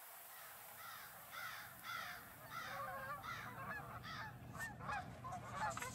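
A flock of geese honking: repeated short calls from about a second in, coming faster and louder, with several overlapping near the end.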